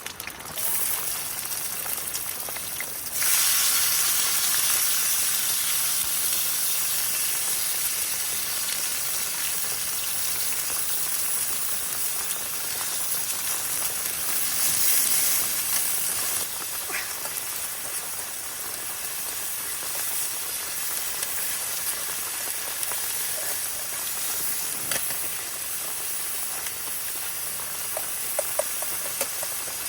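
Chopped ingredients sizzling as they fry in hot oil in a pan. The hiss jumps up suddenly about three seconds in, then eases a little after the middle and carries on steadily.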